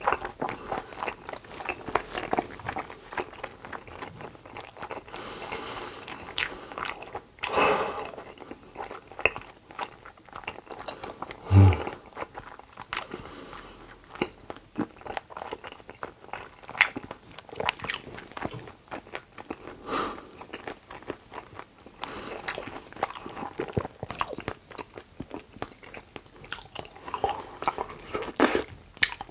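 Close-miked eating: irregular chewing, biting and crunching with many small wet clicks of the mouth. A single louder low thump comes partway through.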